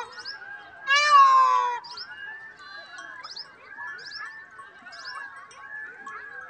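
Indian peafowl (peacock) giving one loud call about a second in, its pitch falling. Shorter, quieter chirps carry on after it.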